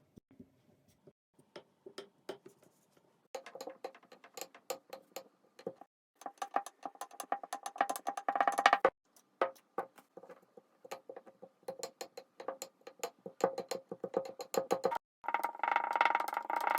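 Kinetic sand being squished and crumbled, a crisp crackling of many fine clicks. It comes in bursts that get denser, and turns into a thick continuous crackle near the end.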